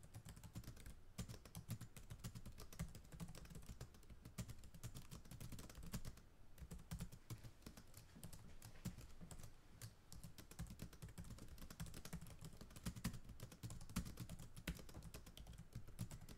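Computer keyboard typing: a fast, continuous run of quiet keystroke clicks.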